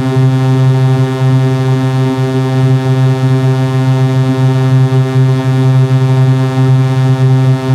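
Electronic 'technical problems' sound effect: a loud, harsh synthesized buzzing tone held at one low pitch, rich in overtones and unchanging throughout.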